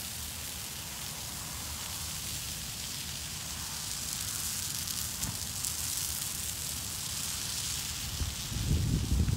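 Large brush pile of broken tree limbs burning: a steady crackling hiss of flames, slowly getting louder. A low rumble comes in near the end.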